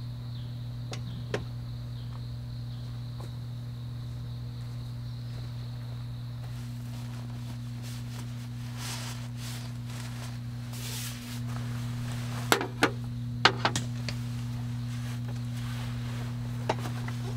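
A faint high insect trill over a steady low hum. Then tent fabric rustles as the door flap is rolled up, and a few sharp clicks and knocks follow as a metal pot and a camp stove are set on a table.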